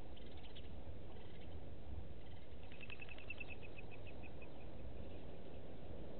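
A bird calling a quick run of about a dozen short notes, falling slightly in pitch, a few seconds in, over a steady low rumble of outdoor background noise.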